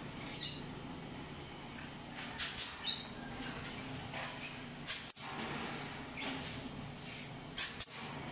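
Pneumatic clip gun firing clips into galvanized wire mesh to join battery-cage panels: a few sharp snaps, mostly in quick pairs, over a steady low hum.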